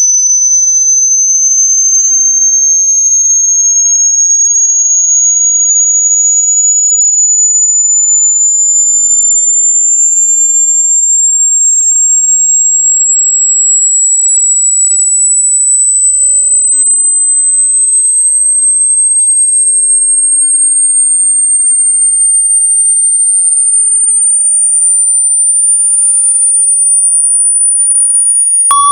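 A loud, piercing, electronically generated pure tone, very high in pitch, gliding slowly and steadily upward.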